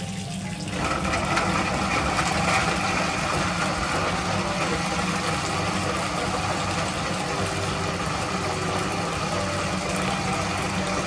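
Countertop high-speed blender motor switched on about a second in, then running steadily at speed.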